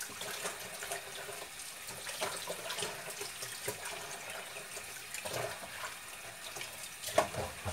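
Kitchen tap running steadily into a plastic bowl in the sink, with small splashes and light knocks as washed spinach is drained in a plastic colander.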